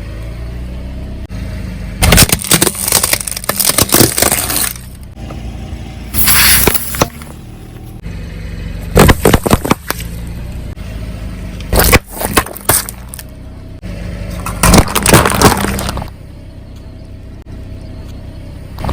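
Objects crunching and cracking as a car's tyre rolls over and crushes them, in about five separate bursts a second or two long. A steady low hum runs beneath.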